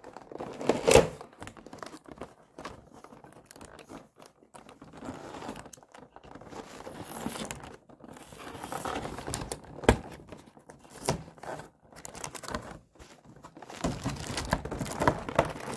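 Clear plastic packaging crinkling and rustling as it is handled and pried open to free the figure. Irregular sharp snaps and clicks run through it, the loudest about a second in and another about ten seconds in.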